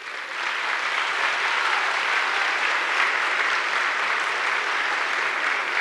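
Audience applauding in a large hall. It swells over about the first second, then holds steady.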